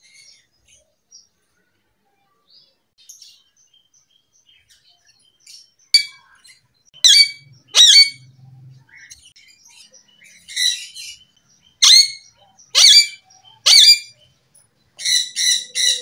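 Ringneck parakeet giving loud, sharp screeching calls, each falling steeply in pitch. They start about six seconds in, come singly or in pairs about a second apart, and end in a quick run of four.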